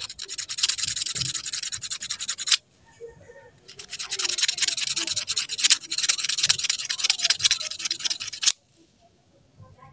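Sandpaper rubbed rapidly back and forth on a metal part of a gas stove valve, in two spells, the second longer, stopping shortly before the end. The part is sanded smooth so the valve no longer catches.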